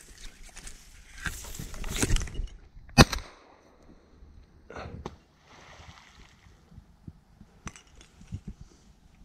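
Dry reeds rustling, then a single shotgun shot about three seconds in, the loudest sound by far; a few faint knocks and rustles follow.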